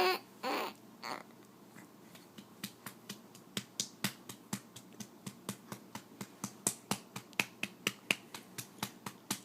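Baby sucking on a feeding bottle: a steady train of soft clicks, about three a second, that begins about two seconds in and grows louder.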